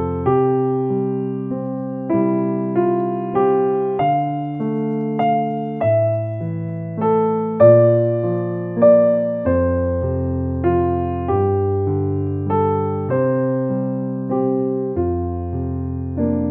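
Background piano music: a slow, gentle melody of single notes over long held bass notes.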